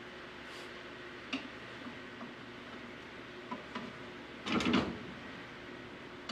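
A few light clicks, then a brief louder scrape about four and a half seconds in, as a wooden utensil works against a ceramic casserole dish of fish, over a steady room hiss.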